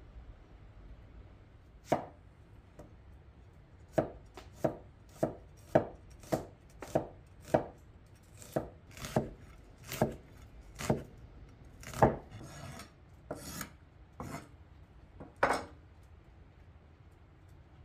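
Large kitchen knife chopping an onion on a thick wooden cutting board: about twenty sharp, irregular chops, starting about two seconds in and stopping a couple of seconds before the end.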